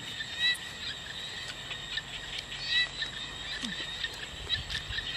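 Evening chorus of frogs and insects: a steady high-pitched drone with short chirping calls every second or two, and a few light clicks.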